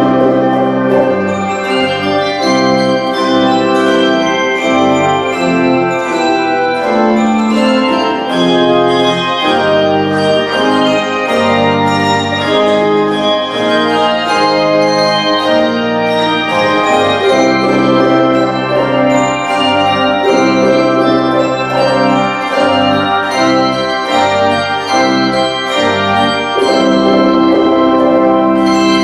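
Handbell choir and organ playing together: held organ chords under a stream of ringing handbell strikes, several a second.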